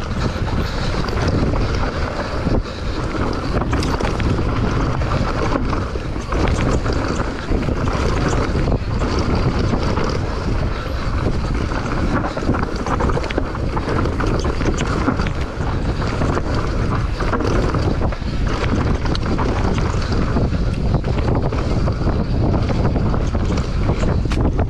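Downhill mountain bike ride heard from the rider's camera: steady wind buffeting the microphone over the rumble of knobby tyres on a rough dirt trail, with frequent knocks and rattles from the bike over roots and rocks.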